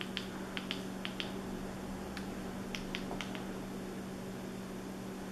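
Faint clicks of remote-control buttons being pressed to step through an on-screen menu, about a dozen in the first three seconds, over a steady low hum.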